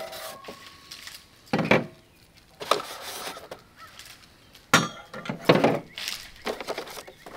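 Metal mounting brackets and hardware clinking and clattering as they are lifted out of a packing box and set down on a table: several separate knocks, a second or so apart.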